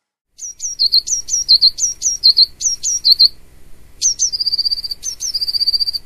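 A small songbird singing in high, quick phrases of paired notes that drop in pitch, repeated over and over, with a fast even trill on one pitch about four seconds in.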